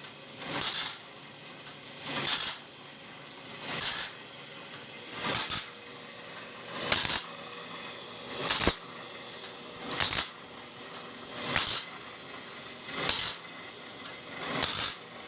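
Homemade bandsaw blade sharpener grinding a sawmill band blade: a short grind about every second and a half as the cam-driven arm lowers the grinding wheel onto each tooth, with a faint steady hum between strokes. The blade struck a lag bolt, so it is getting a harder grind than usual.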